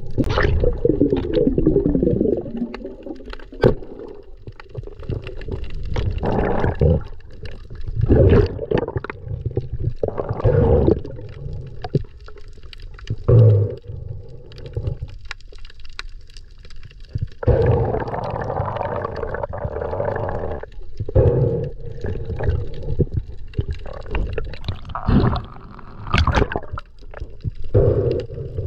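Muffled rushing and gurgling of water heard through an underwater camera, swelling and fading in irregular surges every second or two as the swimmer moves.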